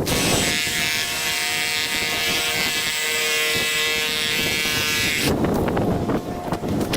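A power tool's electric motor running at a steady speed with a whine and hiss, cutting off abruptly about five seconds in.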